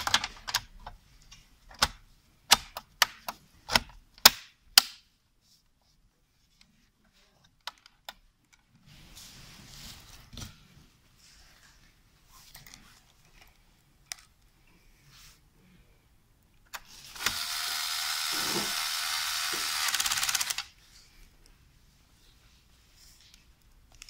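A quick run of sharp clicks and knocks in the first few seconds as parts inside a Dell OptiPlex 3030 all-in-one's metal chassis are handled and fitted back. Later comes a loud, even hiss lasting about three seconds that starts and stops abruptly.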